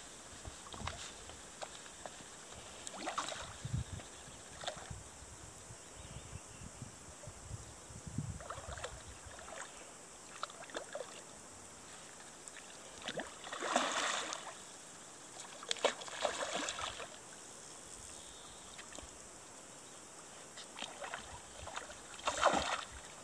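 Water splashing and sloshing in several separate short bursts, the loudest a little past the middle, over a low steady background of running water.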